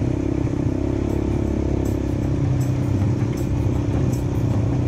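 ATV engine running steadily at an even pace while riding along a dirt trail.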